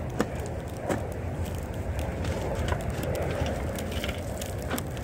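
A scorched metal can full of homemade lump charcoal being handled and tipped over: scattered clinks and knocks of the tin and charcoal pieces, with a rustle of charcoal shifting about three to four seconds in, over a steady low rumble.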